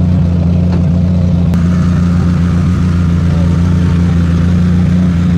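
Steady low mechanical drone of a running motor, with a crowd chatting around it. A click about a second and a half in brings in a higher whir on top.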